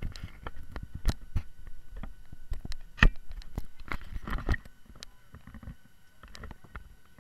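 Irregular clicks, knocks and rubbing from a small handheld action camera being handled against its microphone, loudest about a second in, at about three seconds, and in a short cluster just past four seconds, over a faint steady electronic whine.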